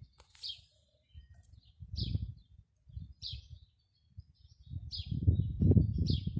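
A small bird chirping, one short high chirp repeated about every second and a half. Under it a low gusty rumble comes and goes, loudest near the end.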